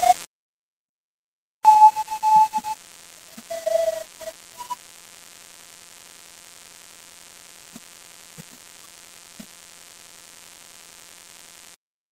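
A few short electronic beeps at different pitches, then a steady hiss of static with a few faint clicks, which cuts off suddenly near the end.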